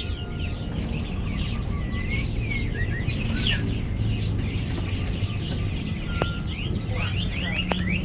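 Fischer's lovebird chattering: a rapid, continuous run of short high chirps and squeaks, over a steady low hum. There are two sharp clicks near the end.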